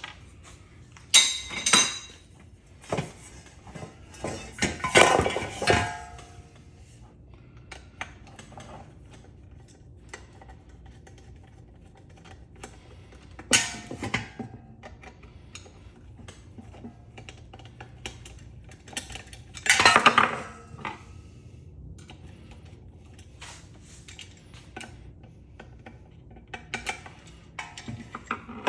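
Metal ceiling fan parts and hardware clinking and clattering as they are handled and set down during disassembly, in scattered bursts with quieter stretches of small clicks between.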